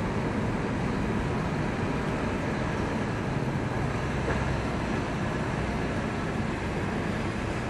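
A steady low rumble with a rushing hiss from the AIDAblu cruise ship's machinery as the ship moves slowly in to berth.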